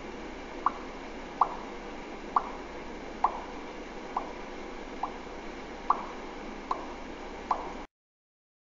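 Water drops falling one at a time, nine in a row at a steady pace of a little more than one a second, each a short pitched plop, over a steady faint hiss.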